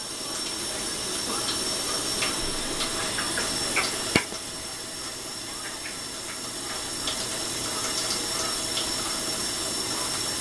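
Water running steadily with small splashes and light clicks as a cockatiel and a lovebird bathe, and one sharp click about four seconds in.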